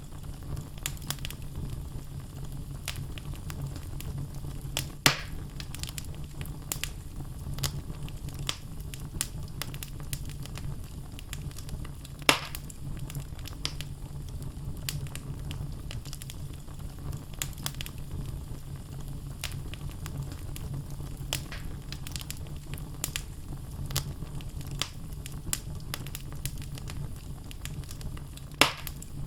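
Wood fire burning in a fireplace: a steady low rumble of flames with frequent small crackles from the logs, and three louder pops, about five seconds in, about twelve seconds in and near the end.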